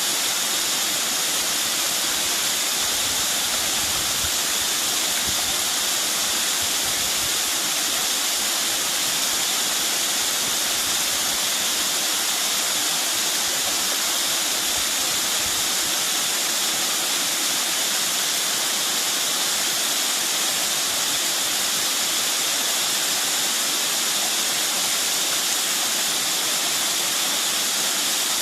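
Water of a mountain stream flowing steadily, a constant rushing hiss with no breaks.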